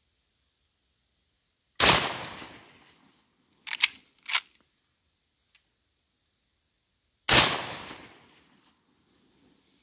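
Two rifle shots from a 1904 Winchester Model 1894 lever-action in .30-30, about two and seven seconds in, each echoing away over about a second. Between them the lever is worked open and shut with two quick metallic clacks, followed by a faint tick.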